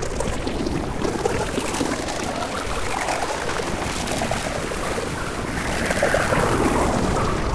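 Dense, noisy electroacoustic sound-art texture: a steady rushing wash with slow swooping tones that rise and fall, growing louder near the end.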